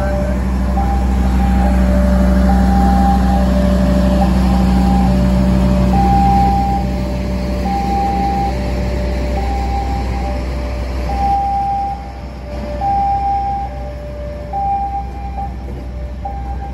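Electronic two-tone warning alarm, a higher and a lower tone alternating steadily, a pair about every second and a half. Underneath is the low, steady drone of the diesel locomotive pushing the passenger train slowly backwards, which fades about twelve seconds in.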